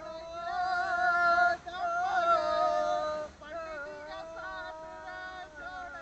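A song with a singing voice: long held notes that waver in pitch, loudest in the first half.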